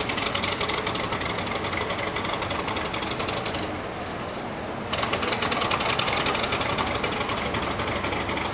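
Class 31 diesel locomotive's English Electric V12 engine running hard just after a cold start, with a fast, even clattering beat. Its clatter drops back briefly a little before the middle and then comes back stronger.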